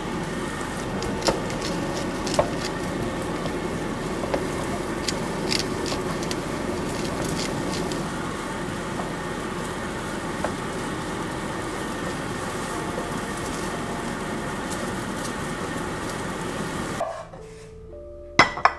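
Fried rice sizzling in a hot pan as a wooden spatula stirs it, with occasional sharp clicks and scrapes of the spatula against the pan. About seventeen seconds in the sizzle cuts off and soft music begins, with a sharp clack as a wooden bowl is set down on a ceramic plate.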